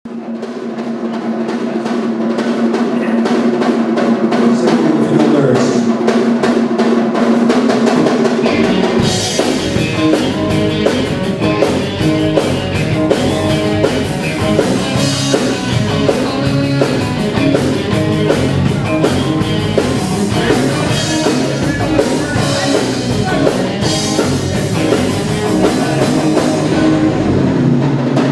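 Live rock band playing an instrumental on drum kit, bass and electric guitars: it opens with held chords swelling in, and about nine seconds in the drums and bass come in at full volume.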